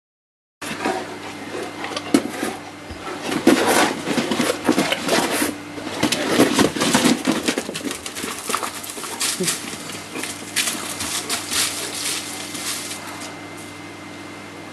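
Three Neapolitan mastiffs scuffling and chasing, with growls and paws scrabbling on dirt and gravel: pack tension set off by a bitch coming into heat. The commotion is loudest in the first half and dies down near the end as the dogs move off.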